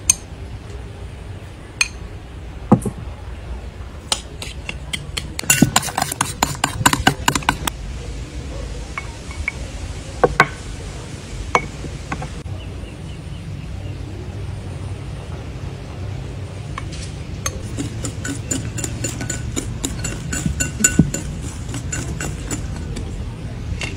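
A metal wire whisk beating batter in a glass mixing bowl: fast runs of clinking as the wires strike the glass, in two stretches, with a few single clinks of a spoon on the bowl before them.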